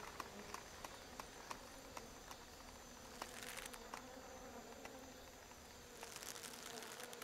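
Flies buzzing faintly, with scattered small ticks and clicks; the buzz swells briefly twice.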